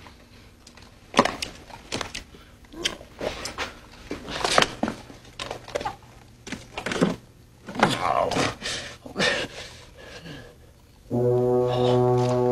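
Defibrillator paddles and the unit's controls being handled: a string of separate clicks and knocks. Near the end a loud, steady low buzzing tone starts and holds on one pitch.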